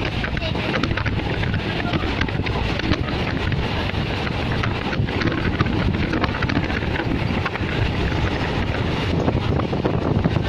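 Wind rushing over the microphone at an open train window, over the steady running noise of the moving passenger train.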